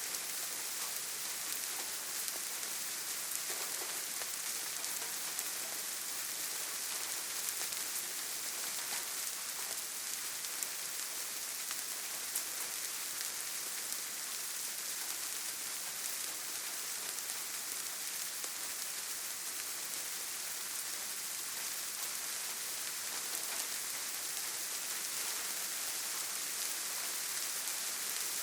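Steady, even rain falling, with the odd separate drop ticking through the constant hiss.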